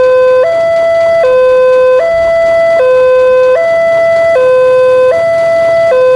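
Railway level-crossing warning alarm from a pole-mounted horn loudspeaker, sounding a lower and a higher tone that alternate evenly, each held for a little under a second. It signals that a train is approaching and the crossing is closed.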